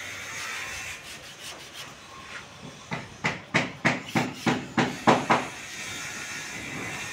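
Hammering: a quick run of about ten sharp strikes, three to four a second, lasting about two and a half seconds from near the middle, over a steady hiss.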